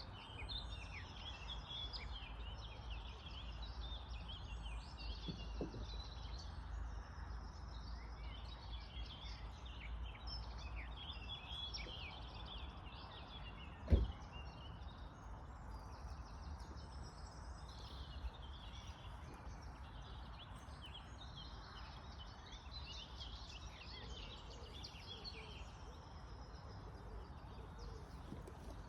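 Several birds chirping and singing over a steady low rumble, with one brief thump about halfway through.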